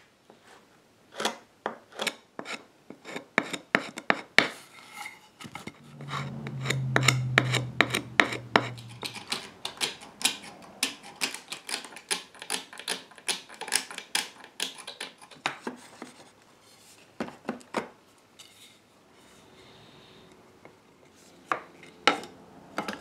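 Hand scraping of a wooden chair-rail tenon with a steel scraper blade: quick rasping strokes, about two or three a second, shaving the tenon down to fit its mortise. The strokes pause a little past the middle and start again near the end.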